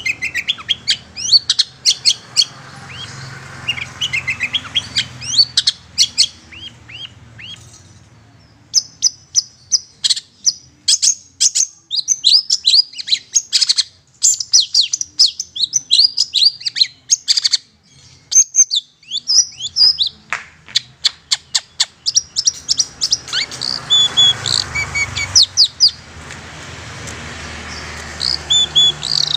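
Long-tailed shrike (cendet) singing a fast, scratchy chatter of short, sharp chirps and quick falling notes, in long runs broken by brief pauses.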